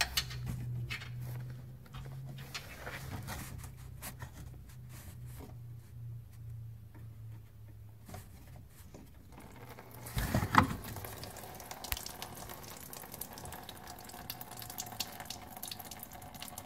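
Radiator drain petcock being turned by hand with small clicks over a low hum. About ten seconds in there is a knock, then engine coolant runs in a steady stream through a funnel into a drain pan.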